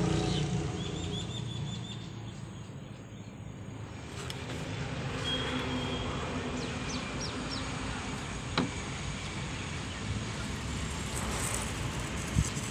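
Steady low rumble of outdoor background noise, with a few bird chirps a few seconds in, a sharp click about eight and a half seconds in and a short thump near the end.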